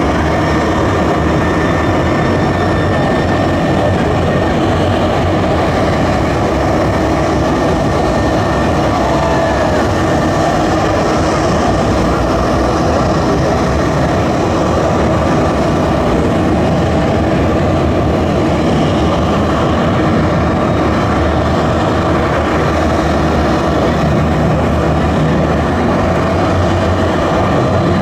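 Jet aircraft running steadily: a loud, even rush of engine noise with a few faint steady whining tones on top.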